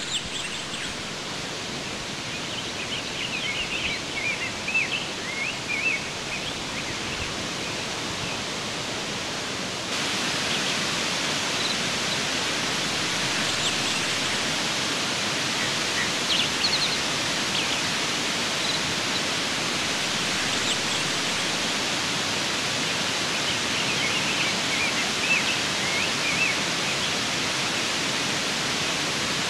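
Tomara Waterfall's water falling and rushing in a steady, even roar, the falls running high with spring flow; it gets louder about ten seconds in. Small bird chirps come through now and then.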